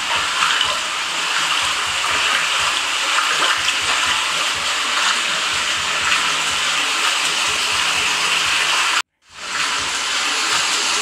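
Steady rush of running water in a flooded house, heard through a phone's speaker. It cuts out abruptly about nine seconds in, and a similar rush comes back.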